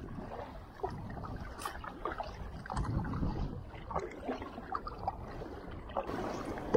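Kayak paddle strokes splashing and choppy sea water sloshing and gurgling against the kayak's hull.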